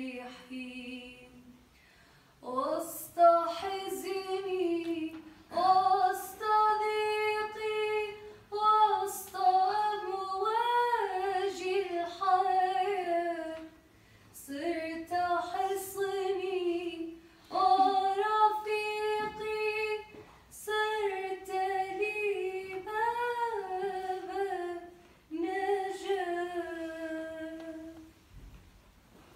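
A solo female voice singing unaccompanied, in slow phrases of a few seconds each whose pitch bends and ornaments, with short pauses for breath between them.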